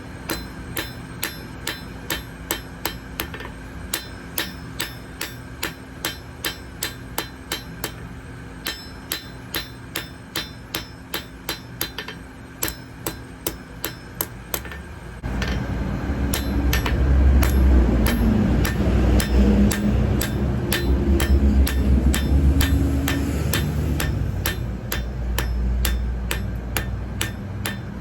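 Hammer blows on metal at an anvil, steady and even at about two strikes a second. About halfway a loud low rumble starts and continues under the hammering.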